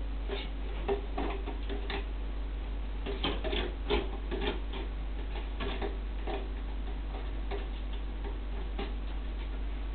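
Cat's claws and paws clicking and knocking on the thin wooden slats of a climbing tube as it climbs, in irregular ticks, busiest about three to four and a half seconds in.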